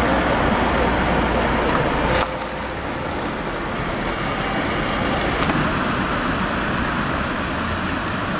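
Steady rumble of idling fire engines' diesel engines mixed with street noise. The sound drops abruptly about two seconds in, then carries on steadily at a lower level.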